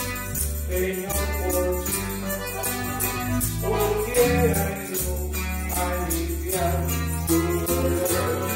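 Instrumental music on accordion and electric bass: an accordion melody over held bass notes, with a steady jingling beat ticking along.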